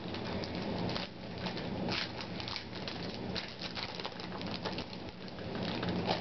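Foil-wrapped trading-card pack crinkling and tearing as it is opened by hand: a dense, irregular run of small crackles.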